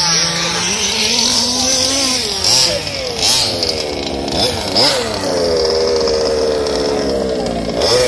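Small two-stroke petrol engines of 1/5-scale RC buggies revving up and down as they race, the pitch rising and falling with the throttle. In the second half one engine holds a steadier, high-revving note.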